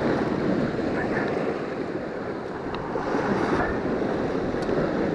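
Sea surf washing steadily against a rocky shore, mixed with wind rumbling on the microphone.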